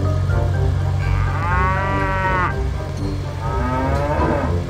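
A cow mooing twice, each moo about a second long, over background music with a steady bass.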